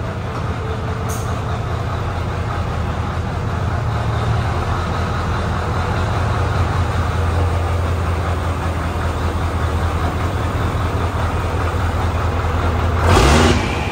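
Scania semi truck's diesel engine idling steadily. Near the end comes a short, loud hiss of air from the truck's air brakes.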